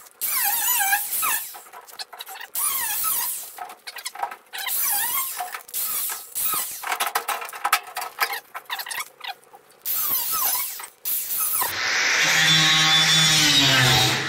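Electric angle grinder with a thin cut-off wheel cutting sheet-steel wheel-well panel in short stop-start bursts, the wheel squealing with a wavering pitch as it bites the metal. Near the end it runs in one longer steady cut for a few seconds, and its pitch falls right at the close.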